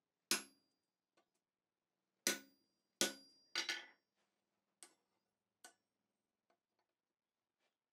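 Hammer blows on a hand-held top tool driving dimples into a hot steel bar on the anvil: sharp metallic strikes that each ring briefly. There is one blow, then a quick run of three or four starting about two seconds in, followed by a few lighter taps.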